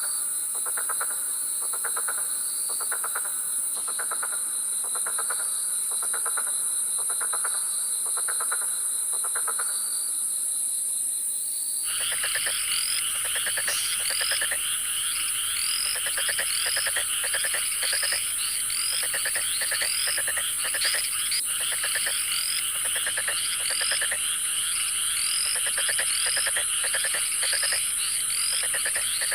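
Frogs calling in a night chorus, evenly spaced pulsed croaks a little under once a second over a steady high insect buzz. About twelve seconds in the sound cuts to a denser chorus with quick repeated chirps, about two a second.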